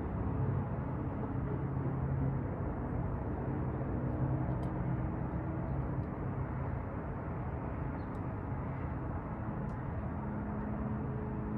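Steady wash of city street traffic heard from high above the street, a blend of engine hum and tyre noise with no single vehicle standing out. A few faint short high squeaks sit on top of it.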